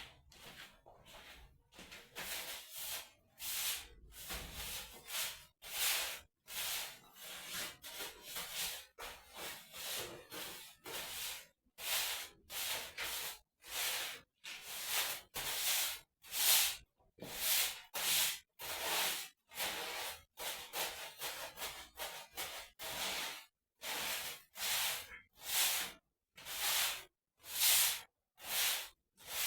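Broom sweeping a hard floor in brisk, repeated strokes about once a second, the bristles brushing across the surface, louder from about twelve seconds in.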